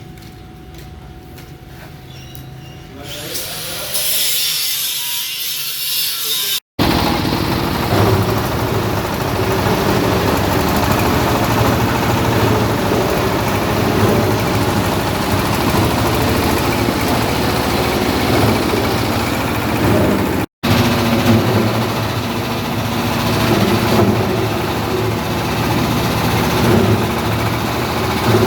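Coconut husk grinding machine (cocopeat grinder) running and shredding husk: a loud, dense grinding noise over a steady motor hum. It starts quieter and builds over the first few seconds. The sound cuts out for an instant twice.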